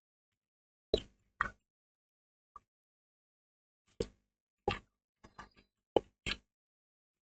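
Computer keyboard keys being struck during typing: about ten sharp, separate clicks at uneven spacing, with a quick run of three near the middle.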